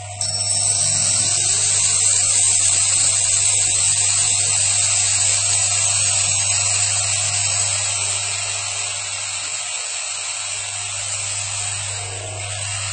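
Portable electric glass drilling machine's core bit grinding into a wet glass pane: a loud, steady high hiss over the motor's hum. It starts suddenly as the bit meets the glass and eases somewhat from about eight seconds in.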